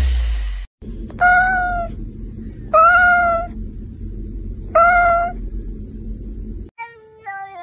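A cat meowing three times, each meow a clear, high call of under a second, spaced about one and a half to two seconds apart.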